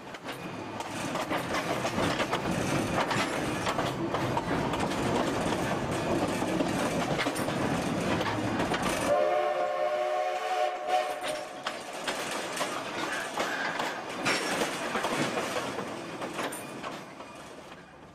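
Narrow-gauge steam train rolling slowly, its wheels clicking over the rail joints. The locomotive's steam whistle sounds once for about two seconds, about nine seconds in.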